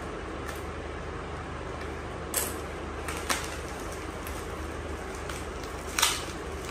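Packaging and a paddock-stand fitting being handled while it is unpacked: three short sharp crackles and knocks, the loudest near the end, over a steady low background hum.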